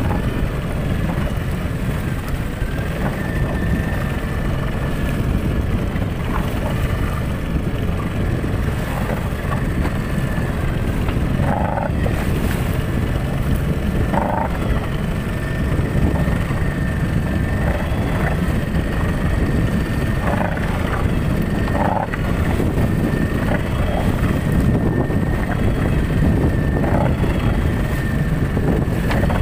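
Outboard motor on a small fibre fishing boat running steadily under way, a low rumble with a thin steady whine above it, mixed with wind and water rushing past.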